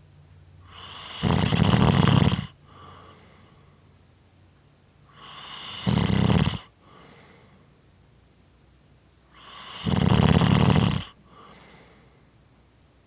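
Snoring: three loud snores about four seconds apart, each building up briefly and then lasting about a second, with a faint breath after each.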